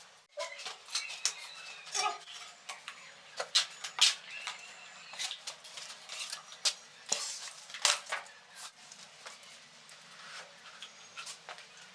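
Irregular light clinks and taps of hard ceramic tiles and tiling tools being handled and set, some with a brief ring.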